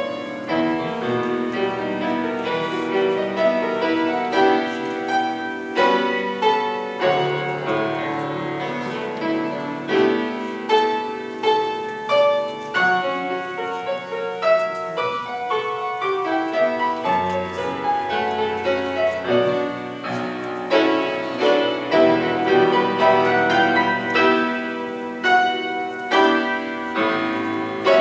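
Grand piano playing a flowing classical-style piece, many notes struck in quick succession and left ringing.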